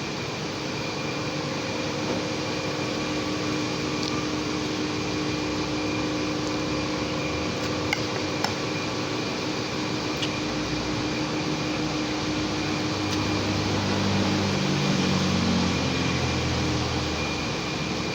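Steady whirring hum of an electric fan or air conditioner, with a couple of faint clicks around the middle and a low droning sound that swells and shifts in pitch about three quarters of the way through.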